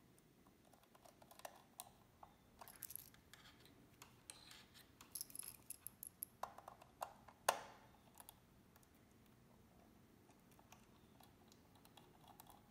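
Faint handling sounds of wiring a model-railway decoder: light clicks and scrapes of a small screwdriver and twisted wire ends at the plastic screw terminals. The sharpest click comes about seven and a half seconds in, after which the handling goes quiet.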